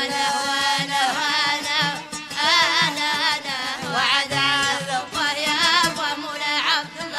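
Moroccan aita folk music: sung lines with wavering, ornamented notes over violin and steady hand-drum percussion.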